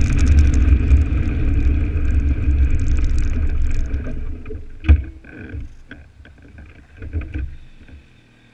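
Dirt bike riding with wind rush on the microphone and its engine running, then fading away as the bike slows down about four seconds in. A single sharp thump about five seconds in, a few softer knocks after it, and only a faint low hum near the end.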